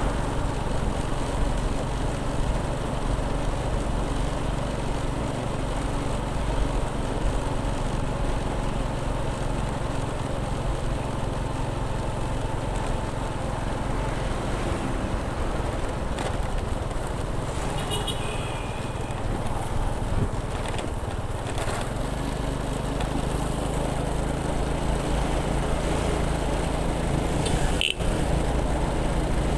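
Motorcycle engine running steadily while riding, with road and wind noise; its note shifts about two-thirds of the way through. A brief high-pitched tone sounds a little past halfway, and a single sharp click comes near the end.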